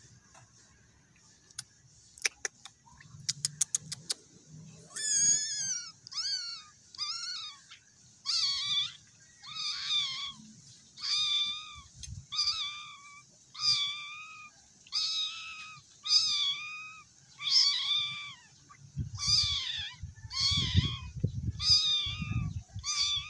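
A cat meowing over and over from about five seconds in: short, high-pitched mews roughly one a second, each rising then falling in pitch.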